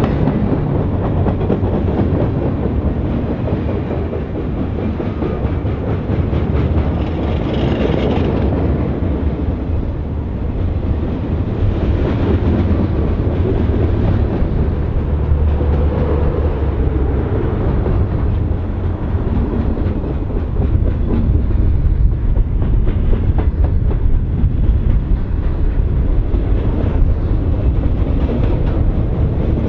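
Freight train rolling past: a steady low rumble with wheels clicking over the rail joints.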